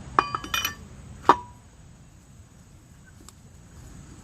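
A few quick metallic clinks, then a single sharp clank about a second in that rings briefly: lug nuts and a wrench being handled while the wheel's lug nuts are taken off.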